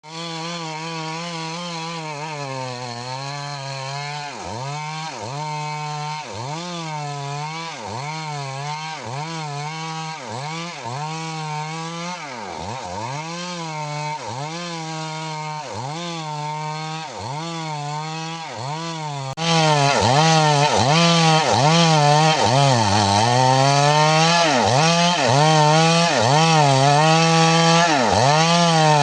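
Chainsaw running at steady high revs while cutting wood. It becomes suddenly louder about two-thirds of the way through.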